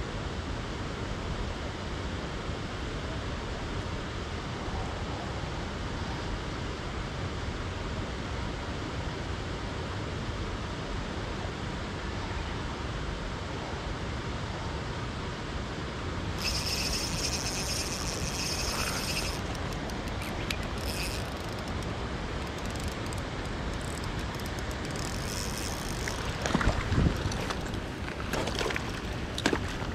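Steady rushing noise of river water and rain. About halfway through, a high whirring lasts about three seconds; scattered light clicks and a single low thump follow near the end.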